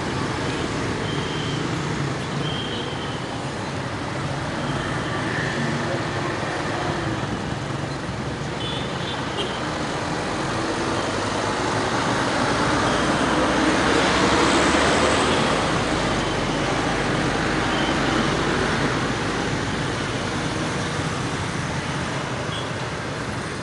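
Road traffic driving past: trucks, cars and motorcycles with engines running and tyres on the road. It swells to its loudest about halfway through as a heavy dump truck passes close.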